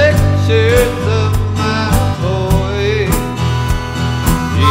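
Band music with a harmonica playing a bending, sliding lead line over a steady drum beat, strummed acoustic guitar and electric bass.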